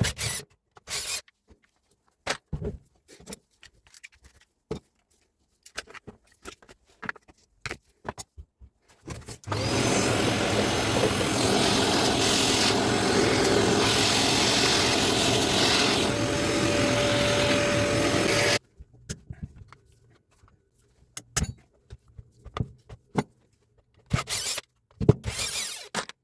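Scattered clicks and knocks of parts and tools being handled, then a loud, steady mechanical noise that runs for about nine seconds and cuts off suddenly, followed by more knocks.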